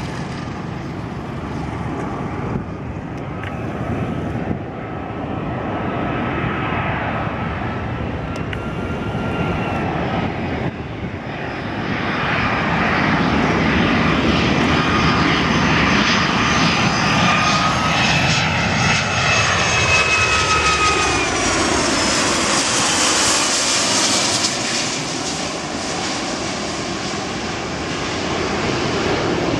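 Airliner flying low overhead on its landing approach: a rushing engine noise that builds and grows loud, with a high engine whine that drops in pitch as the aircraft passes, then eases off.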